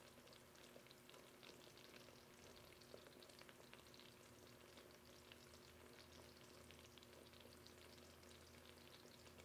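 Faint, fine crackle of brown sugar caramel syrup at a rolling boil in a Ninja Foodi's pot, with many small bubbles popping as the water cooks out on the way to the hard-ball stage. A faint steady hum sits underneath.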